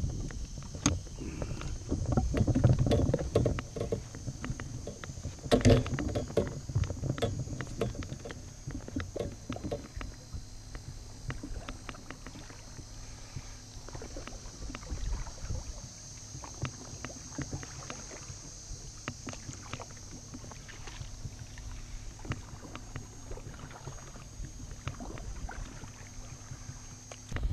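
Paddling a small inflatable boat: splashy paddle strokes in the water and irregular knocks of the paddle against the boat. These are busiest and loudest in the first several seconds and lighter after that.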